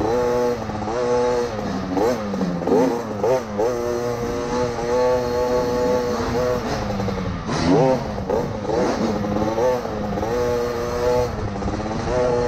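KTM 50 SX mini's small two-stroke engine revving up and down as it is ridden, heard close from on the bike. The pitch climbs and falls every second or two as the throttle opens and closes, with a deeper drop and climb about eight seconds in.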